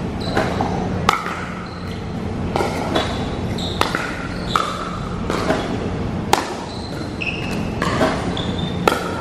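Pickleball play against a ball machine: a string of sharp plastic pops from balls struck by paddles and bouncing on the court, about ten in all at irregular intervals of roughly one a second, some ringing briefly. A steady low hum runs underneath.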